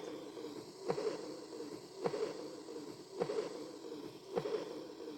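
Auscultation recording of heart sounds, a regular beat a little more than once a second, each beat followed by a fading blowing murmur: the early diastolic murmur of aortic regurgitation.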